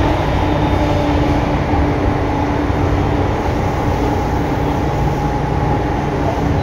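Interior running sound of a Tobu 9000 series electric train under way: a steady rumble of wheels on rail with a steady tone over it.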